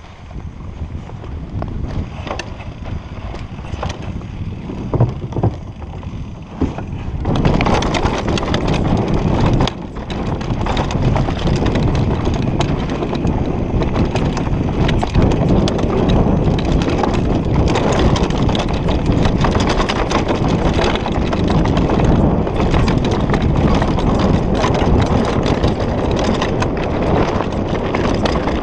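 Mountain bike running fast down a dirt trail: wind rushing over the microphone together with the rattle and knock of tyres, chain and frame over rough ground, which becomes much louder about seven seconds in.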